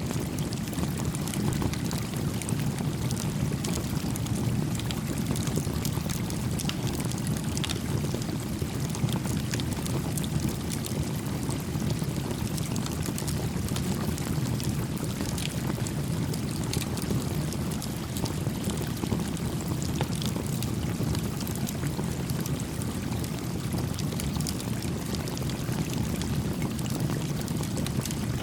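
Small campfire crackling with frequent sharp pops over the steady rush of a gently flowing creek.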